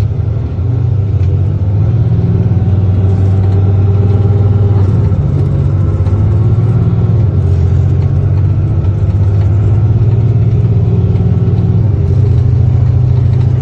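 Engine and road noise of a moving vehicle heard from inside the cabin: a loud, steady low drone whose pitch steps up or down a few times as the vehicle changes speed.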